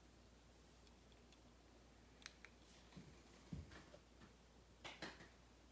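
Faint, scattered clicks and a few soft knocks of small objects and a tool being handled on a tabletop, over near-silent room tone.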